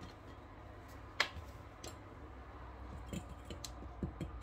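Small clicks and light knocks of hands working with kitchen utensils at a counter, with one sharper click about a second in and quicker taps near the end, over a low steady hum.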